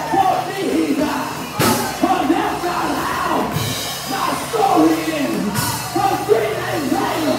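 A preacher chanting his sermon into a microphone in a sung, rhythmic cadence. Behind him is church band accompaniment with low held notes and a cymbal crash about every two seconds.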